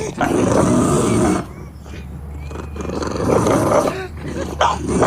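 A dog growling and snarling in several rough bursts.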